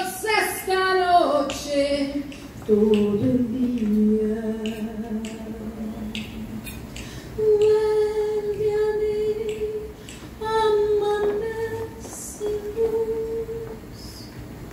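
Tango song playing: a female voice sings for the first couple of seconds, then the melody moves to long held notes. Short sharp clicks are scattered through it.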